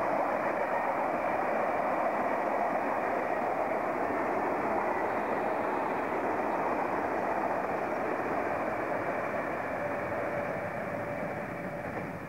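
Stainless-steel double-deck suburban electric train running past, a steady rumble of steel wheels on the rails that fades away over the last few seconds as the train leaves.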